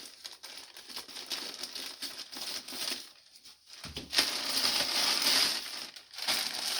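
Plastic bag crinkling and rustling as it is handled and opened, with a short lull about three seconds in and then louder, denser rustling.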